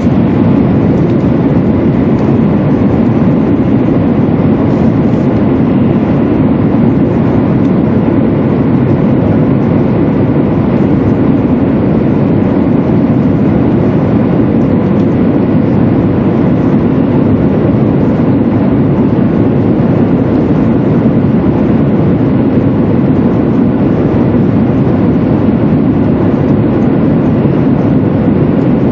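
200 series Shinkansen train running at speed through a tunnel, heard inside the passenger cabin: a loud, steady rumble with no change throughout.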